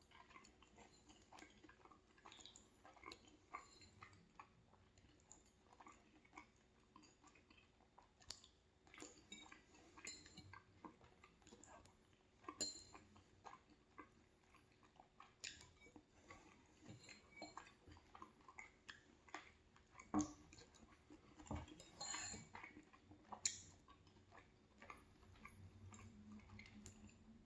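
Faint chewing of soft orecchiette pasta in tomato sauce, with small wet mouth clicks throughout and occasional utensil clinks against the plate, a few of them sharper about two-thirds of the way through.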